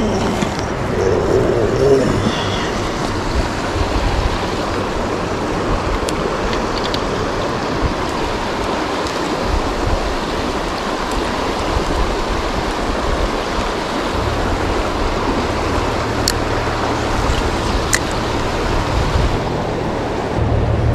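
Kern River water rushing steadily over the rocks. A low rumble joins in about two-thirds of the way through, and there are a couple of faint sharp ticks near the end.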